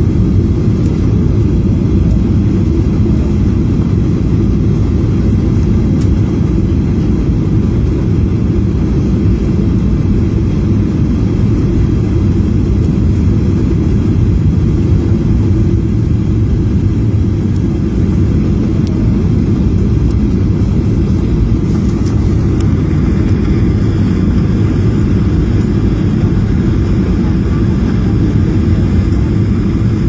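Steady cabin noise of a jet airliner on its landing approach: a low, even rumble of engines and airflow heard from inside the cabin, with a little more hiss coming in about two-thirds of the way through.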